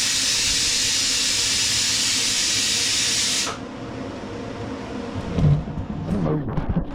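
A mower lift table letting out a steady hiss of compressed air as it is lowered; the hiss stops sharply about three and a half seconds in. A few low thumps follow near the end.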